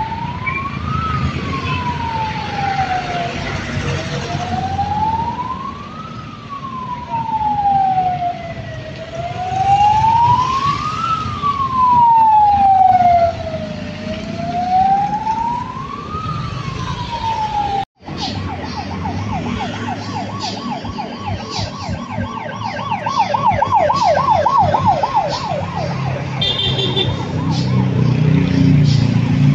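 Electronic siren of a pickup-truck ambulance on a slow wail, rising and falling about every five seconds over street traffic. After a break about two-thirds of the way in, a siren goes to a fast yelp for several seconds, then stops, leaving traffic noise.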